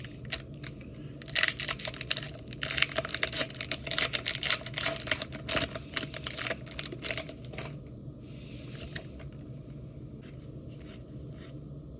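Pokémon TCG foil booster pack being torn open and its wrapper crinkled: a dense run of crackles for about six seconds, then a few lighter rustles and clicks.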